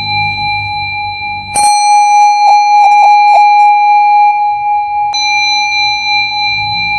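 A steady, unwavering high-pitched tone. About a second and a half in it turns louder and brighter, with a quick run of pulses, then drops back to the plain tone about five seconds in.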